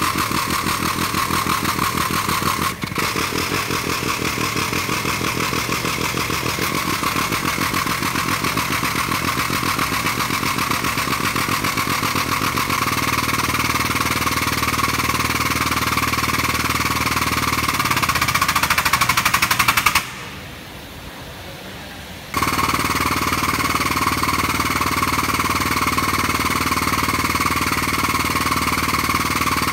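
Pump of a chassis-straightening bench's hydraulic pulling tower running with a rapid, even chatter as the chain pulls on the car's damaged front apron leg. It cuts off for about two seconds about two-thirds of the way through, then starts again.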